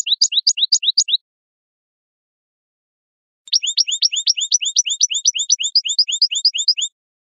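European goldfinch calling: a rapid, even run of short rising chirps, about five a second. The run breaks off about a second in and starts again after a two-second gap.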